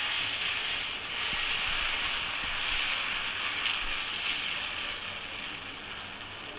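Dosa batter sizzling on a hot tava, a steady hiss that eases a little near the end.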